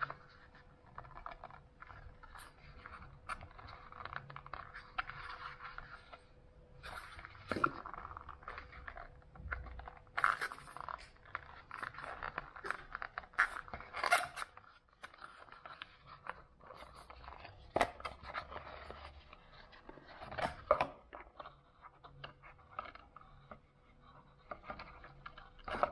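Cardboard packaging being opened and handled by hand: irregular scraping and rubbing of card, with many short sharp taps and clicks.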